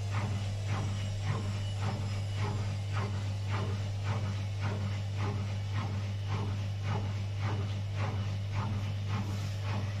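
Indesit front-loading washing machine running a wash cycle: the drum turns and the laundry and water slosh and drop inside it in a regular rhythm, about two to three strokes a second, over a steady low hum.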